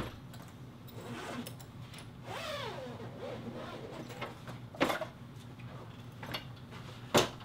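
Zipper of a padded carry case being run open, then the lid and the aluminum banner stand base inside knocking as they are handled, two sharp knocks with the louder one near the end.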